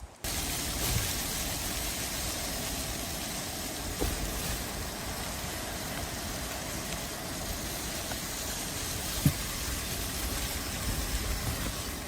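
Strong steady storm wind with a low rumble, starting abruptly just after the start, and a single short knock about nine seconds in.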